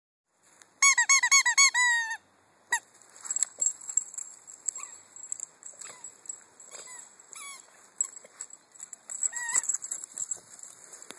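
Squeaky ball toy being squeezed: a quick run of about six squeaks near the start, then scattered single squeaks and small clicks for the rest of the time.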